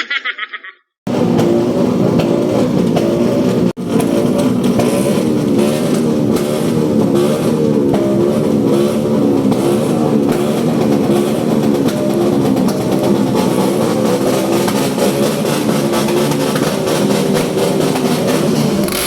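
Motorcycle engine with a loud exhaust revving over and over, its pitch rising and falling about once a second.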